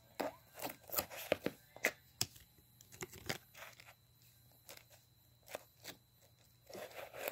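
Clear slime and its plastic tub being handled: irregular sticky crackles and small clicks, thick at first and then sparser, with a longer rustle near the end.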